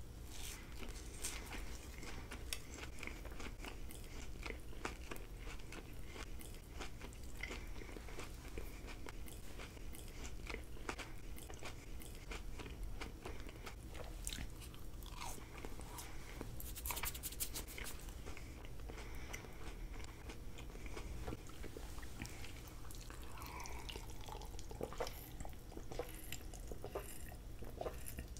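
Close-miked mouth sounds of a person eating soft purple candy: a steady run of bites, chewing and wet mouth clicks, with a dense crackling cluster about two-thirds of the way through.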